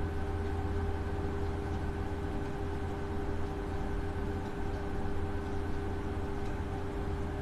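Steady low background hum with a few faint steady tones above it, unchanging throughout: room or equipment noise with no distinct event.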